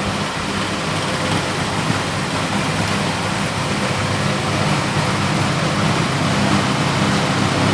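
Steady hiss with a low, even hum underneath, unchanging throughout: a machine running.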